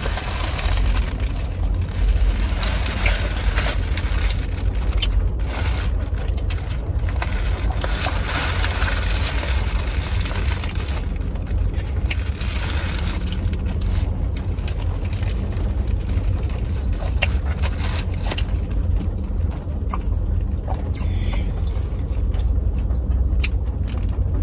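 Close-up eating sounds: biting and chewing a sauced sandwich, with scattered crackles and crinkles from its paper wrapper, over a steady low rumble inside a car.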